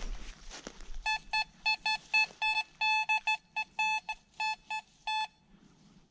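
Fisher F22 metal detector beeping in a quick, uneven run of short beeps, all at one pitch, as it signals a target in the ground. The beeps start about a second in, after some rustling and scuffing, and stop about five seconds in.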